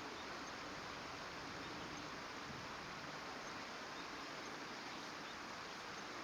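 Steady outdoor background hiss with no distinct calls or events.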